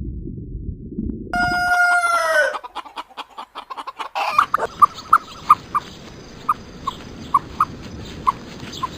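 Animal calls: about a second in, one loud pitched call of about a second that drops in pitch at its end, then a quick run of clicks, then a string of short, irregularly spaced chirps with a faint steady high whine behind them.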